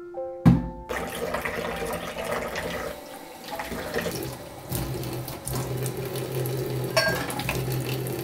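Kitchen tap running into a stainless steel sink while an item is rubbed and rinsed under the stream, with a few light clatters; the water cuts off at the very end.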